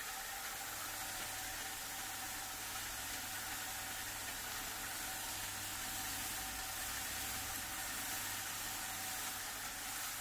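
Homemade star roller running: a steady motor hum with a few constant tones under an even hiss as the black-powder-coated rice hulls tumble in the turning plastic tub.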